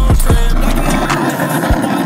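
Hip-hop backing music with deep bass hits, over skateboard wheels rolling on rough asphalt.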